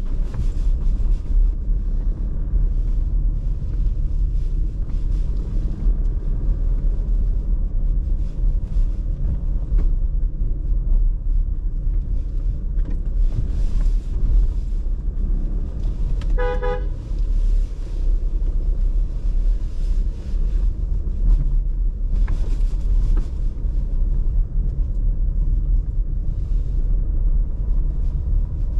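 Car driving along a road, a steady low rumble of engine and tyres, with one short car horn honk a little past the middle.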